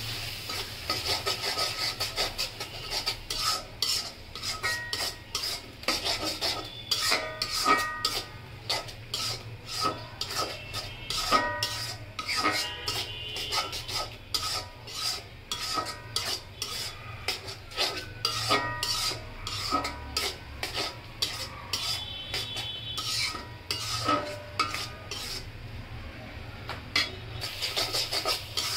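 Metal spatula scraping and knocking against a metal kadai, several strokes a second, while thick tomato-onion masala is stirred. The pan rings briefly at the harder strikes, and the frying paste sizzles, most plainly at the start and near the end.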